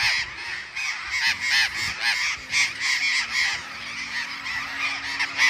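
A large flock of parrots calling, many harsh squawks overlapping without a break.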